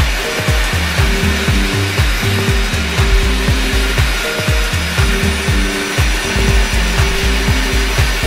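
Background music with a steady beat, about four low strikes a second, under a short repeating melody and bass line.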